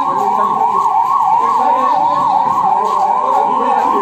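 Ambulance's electronic siren wailing in a fast yelp, its pitch rising and falling about three to four times a second.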